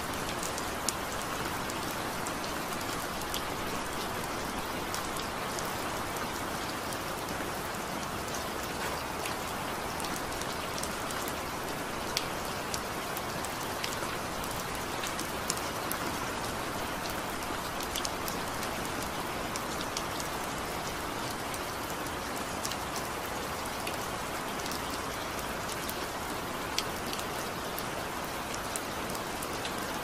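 Steady rain played as sleep noise: an even, continuous hiss with scattered sharp ticks of individual drops.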